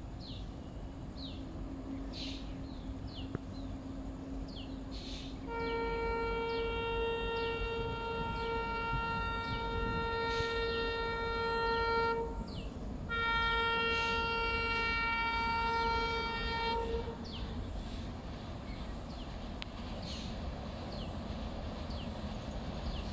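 Horn of an approaching express train's locomotive, sounding two long blasts: the first about seven seconds, the second about four, over a faint low rumble. Faint short chirps throughout.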